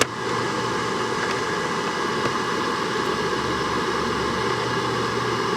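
Asmoke AS300 pellet grill running steadily in prime mode: its fan blowing and the auger motor humming as it feeds pellets toward the burn pot.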